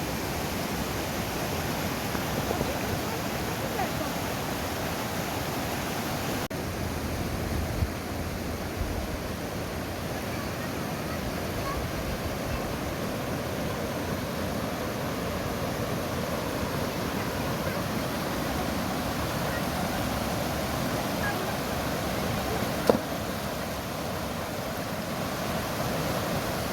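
Mountain river water rushing steadily over rocks, an even hiss-like roar of flowing water, with a single brief knock near the end.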